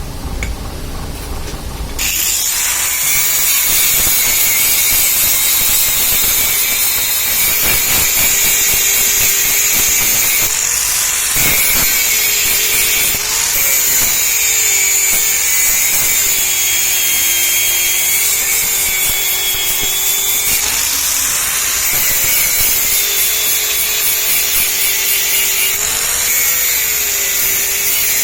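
A handheld electric power tool running on metal, its motor pitch dipping and recovering several times as it is pressed into the work; it starts abruptly about two seconds in.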